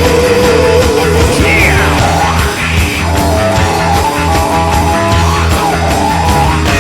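Loud, heavy rock music without vocals: distorted electric guitars, bass and drums, with sliding guitar notes, one falling sharply about a second and a half in.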